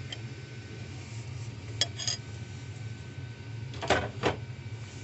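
Metal tools clinking and knocking against metal parts: a few sharp clinks, the two loudest close together near the end, over a steady low hum.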